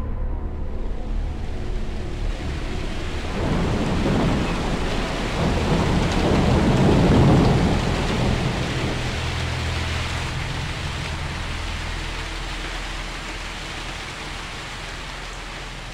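Thunderstorm: steady rain hissing, with a long rolling rumble of thunder from about three seconds in, loudest around seven seconds and dying away by nine. The rain then slowly fades out.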